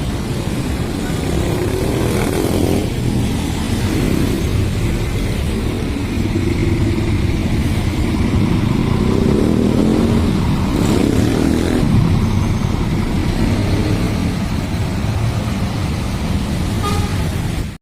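Road traffic: vehicle engines running, swelling twice as vehicles pass close by.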